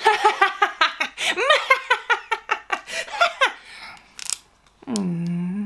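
A woman laughing hard in a long string of rapid bursts. Near the end she starts a held, sliding 'oooo' with pursed lips, dipping then rising in pitch: a mock ghostly moan introducing a haunted-house pin.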